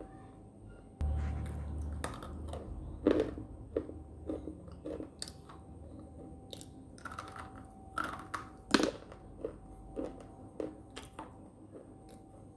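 Close-up crunching and chewing of hard pink slate sticks: a string of sharp, brittle bites and crunches, the loudest about nine seconds in.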